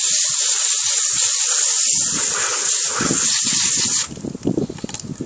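Garden hose pistol nozzle on its jet setting blasting water into a blue crab's opened body to wash out the guts: a loud, steady spray hiss that cuts off suddenly about four seconds in.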